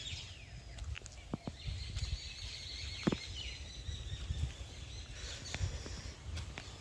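Birds chirping in the open, with short high calls and a thin high tone held through the middle, over a low uneven rumble on the microphone.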